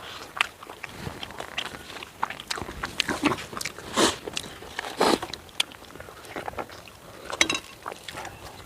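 A person eating tandoori chicken with rice, chewing and biting, with irregular wet mouth clicks and smacks and a few louder bites.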